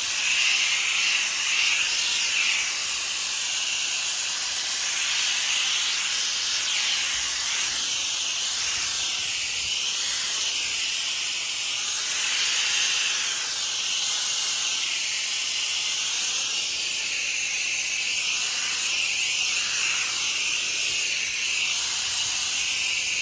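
Steady hiss of a spray nozzle laying cleaning solution onto a deck as a pre-treatment. The sound wavers slightly as the spray sweeps across the surface.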